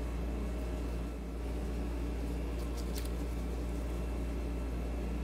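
Steady low hum, with a few faint light clicks about a second in and again around three seconds as a small I.F. transformer coil assembly is handled in gloved hands.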